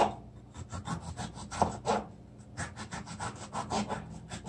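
Kitchen knife slicing a red bell pepper into strips on a cutting board: a quick, uneven series of short cuts, the blade tapping the board with each stroke.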